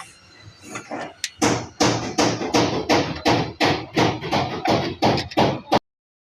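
Hammer blows struck in quick succession, about three a second and a dozen or so in all, after a few softer taps. The blows cut off suddenly near the end.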